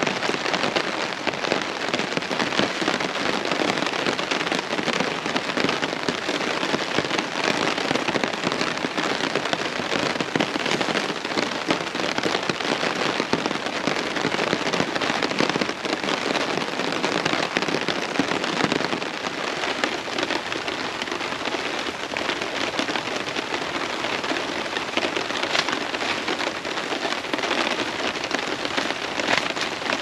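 Steady heavy rain: a dense patter of drops hitting a tarp overhead.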